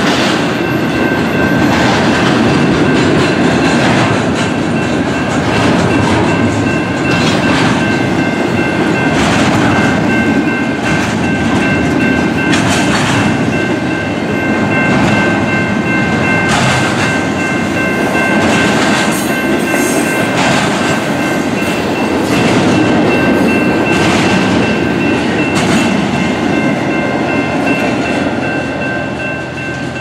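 Union Pacific double-stack intermodal freight train passing close by: its trailing locomotives go by first, then a long run of container cars. The wheels make a steady rumble on the rails, with repeated clicks as they cross rail joints and a few steady high ringing tones underneath.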